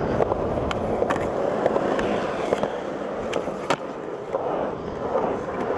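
Skateboard wheels rolling over skatepark concrete: a steady rolling rumble with several sharp clicks along the way.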